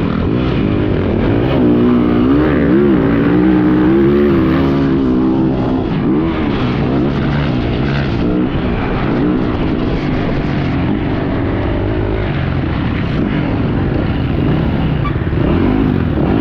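Yamaha YZ450F motocross bike's single-cylinder four-stroke engine being ridden hard, its pitch rising and falling continuously with throttle and gear changes.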